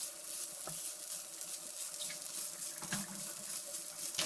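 Grated fresh coconut sizzling as it roasts in hot ghee in a pan, with a spatula stirring and scraping through it a few times.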